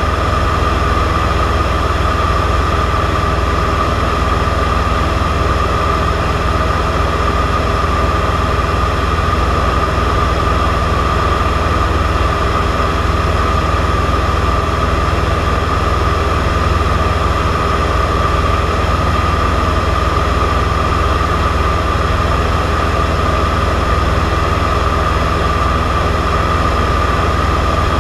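Cessna 172's piston engine and propeller running steadily in flight, heard from inside the cockpit: an unbroken drone with an even whine above it.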